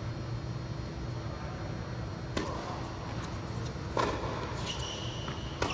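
Tennis ball struck by rackets in a rally on an indoor hard court: three sharp hits about a second and a half apart, the first about two and a half seconds in, with fainter ball bounces between them, over a steady low hum.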